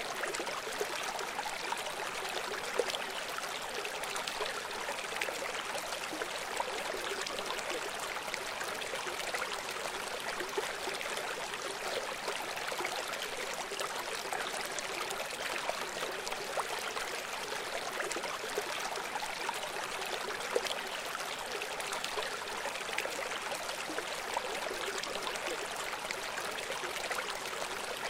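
A river flowing steadily: an even hiss of moving water with small trickles and splashes on top, and a few slightly louder splashes along the way.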